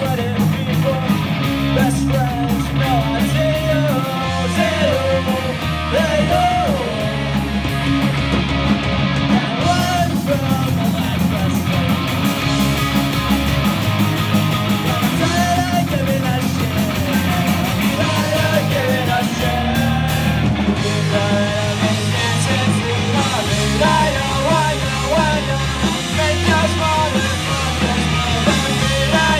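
Live rock band playing: distorted electric guitars, electric bass and a drum kit, with a lead singer singing over them.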